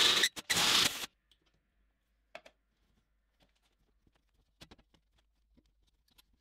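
A drill bit cutting into a metal plate in two short bursts that stop about a second in. Then a hand tap is turned into the freshly drilled hole, with only a few faint clicks.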